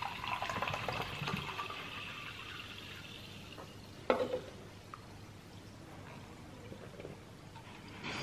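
A drink poured from a can into an enamel mug, a filling sound that fades out over about three seconds. About four seconds in comes a single sharp knock as the can is set down on the glass tabletop.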